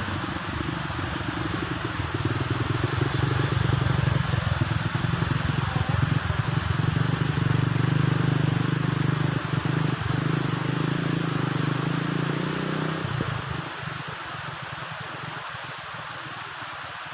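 Heavy rain falling steadily, with a long low rumble of thunder that builds over the first couple of seconds, rolls on, and dies away about three-quarters of the way through.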